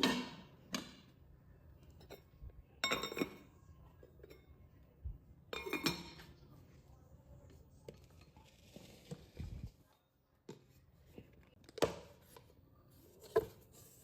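Dishes and cutlery clinking as they are handled, in several short bursts a few seconds apart.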